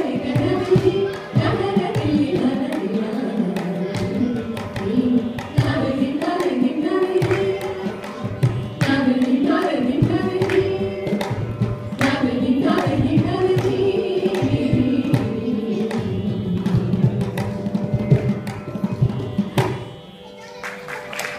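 Women's voices singing a Carnatic thillana in raga Brindavani, Adi tala, with mridangam strokes. The music stops about twenty seconds in as the piece ends.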